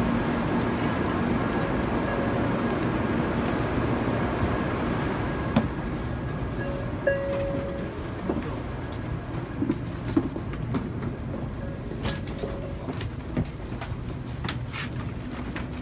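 Steady hum of a Shinkansen train standing at the platform, with a faint steady whine. It drops to a quieter carriage hum about six seconds in, as the camera passes from the platform into the train. Scattered knocks and footsteps follow as passengers walk down the aisle.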